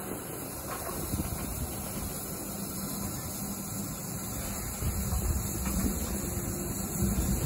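Steam locomotive and its carriages running on the track below, a steady rumble and hiss that grows louder in the last couple of seconds, with a steady hum-like tone joining it near the end.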